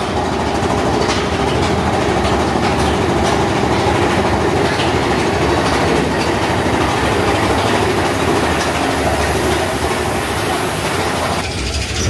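Big Thunder Mountain Railroad's roller-coaster mine train running on its track: a steady rumble and clatter of wheels on rails, with faint clicks through it. A high hiss in the sound stops about a second before the end.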